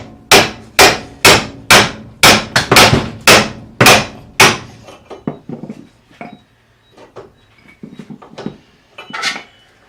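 Hammer blows on the car's front suspension to knock a ball joint loose: about ten sharp metal strikes about half a second apart, then a few lighter clinks of tools and one more knock near the end.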